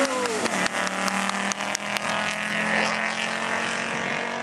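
Audi Quattro rally car passing at speed and pulling away, its engine note falling at first as it goes by, then holding steady, with scattered sharp pops and cracks.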